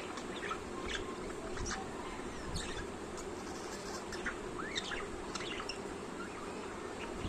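Pet budgerigar singing: a run of short, quick chirps and warbles, rising and falling in pitch.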